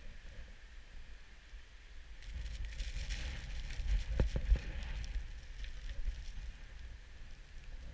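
Snowboard sliding and scraping over packed snow, with wind rumbling on the action camera's microphone. The scraping grows louder from about two seconds in to about five, with a couple of knocks near the middle.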